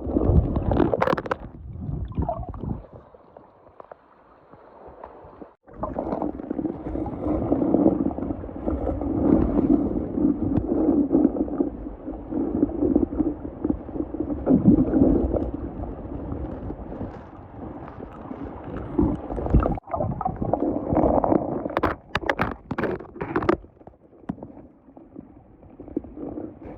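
Water sloshing and gurgling, with wind buffeting the microphone. A few sharp knocks come near the end.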